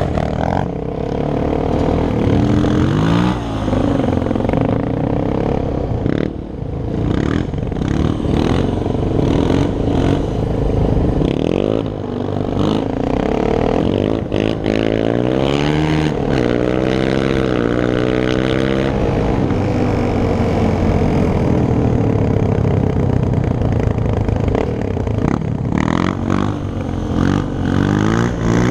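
Sport quad (ATV) engine running hard, revving up and down again and again through the gears, with a long climbing rev in the middle. A second quad runs close by, and there is a clattering rattle throughout.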